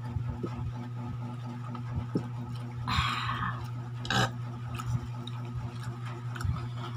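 Small clinks and handling noises of eating at a table with plates, with two short scraping or crunching noises about three and four seconds in, over a steady low hum.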